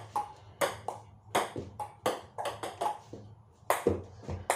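Table tennis rally: a plastic ping-pong ball clicking off paddles and the table top, about three sharp hits a second at an uneven rhythm.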